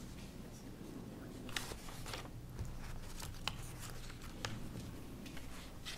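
Quiet meeting-room tone with a low hum, broken by a few scattered small clicks and rustles of papers being handled at the table.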